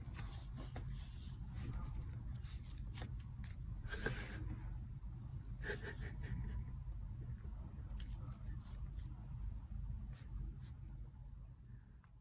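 Low steady room hum with scattered light taps and scrapes: a kitten batting and pushing a small plastic bottle cap on a tile floor.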